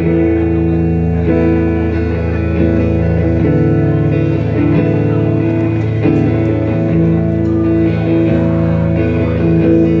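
Live band playing an instrumental passage led by electric guitar, its chords held and ringing over a steady low bass.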